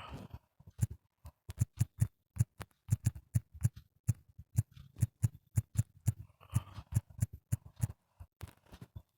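Fingers tapping on a smartphone touchscreen: a run of sharp, irregular taps, each with a dull thump, two to four a second, with a brief soft rustle about six and a half seconds in.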